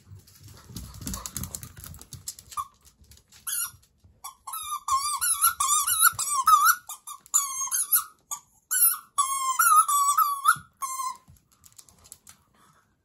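A Jack Russell Terrier puppy chewing a squeaky toy, setting off a rapid run of short, high squeaks that wobble in pitch, from about two and a half seconds in until near the end. Before that, soft footfalls of the puppy on a wooden floor.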